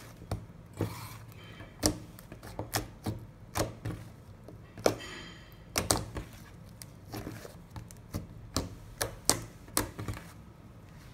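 Fluffy slime being kneaded, pressed and pulled apart by hand on a tabletop, giving irregular sharp pops and clicks, about one or two a second.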